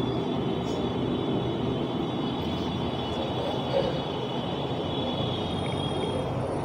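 Steady background noise, like distant traffic, with a faint thin high whine held through most of it.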